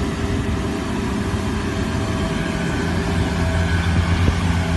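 Steady low engine rumble with a constant droning hum, rising a little about three seconds in.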